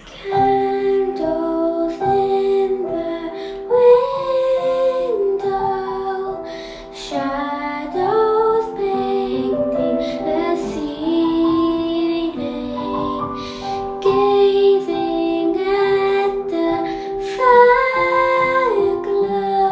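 A young girl singing a slow song solo, her held notes gliding between pitches, over an instrumental accompaniment.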